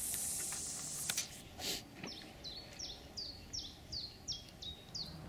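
A fishing line hissing off the reel of a carp rod at the end of a long cast, with a couple of sharp clicks and a short thud within the next two seconds. Then a small songbird sings a run of about nine short whistled notes, each sliding down in pitch, about three a second.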